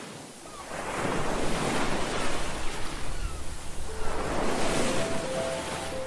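Ocean surf: waves washing in and drawing back, the rush of water swelling about a second in and again around four seconds. Soft sustained music notes come in near the end.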